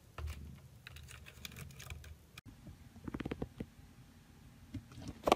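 A cat purring, a low, pulsing rumble, for about two seconds; after a break, a quick run of light taps and a sharp knock near the end.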